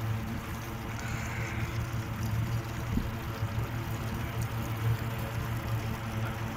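Boat motor running steadily at low speed, a constant low hum with water noise from the hull over calm water.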